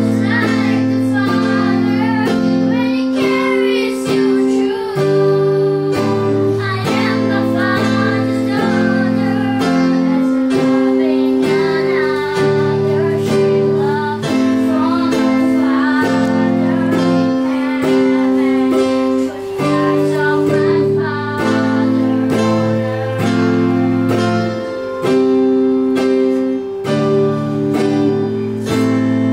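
Young girls singing a song together, with strummed guitar and long held keyboard chords underneath.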